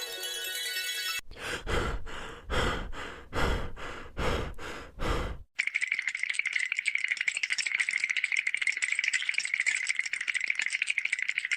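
Sound-effect rattling: a chiming tone dies away, then about six short shaking swishes come under a second apart. About halfway through, a fast, steady, dry rattle starts.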